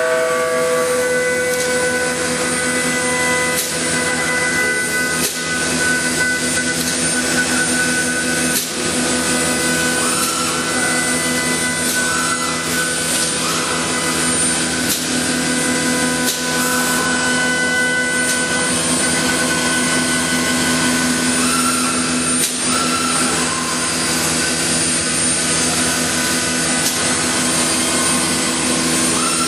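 CNC woodworking machine running: a steady mechanical din with several high whining tones that shift and drop in and out, and a few sharp knocks.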